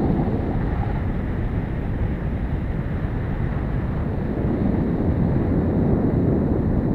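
Motorcycle riding along at road speed: the engine running steadily under a constant rush of wind over the microphone.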